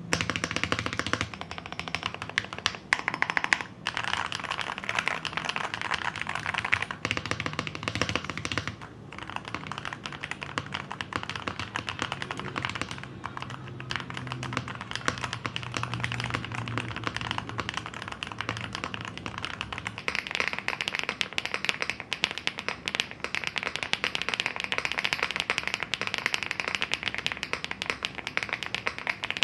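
Typing sound test on a Bridge75 HE keyboard, a gasket-mounted 75% board with Hall-effect magnetic switches, an FR4 plate and case foam: a continuous, dense run of keystrokes with the deep 'thocky' sound the reviewer praises. The typing gets faster about two-thirds of the way in.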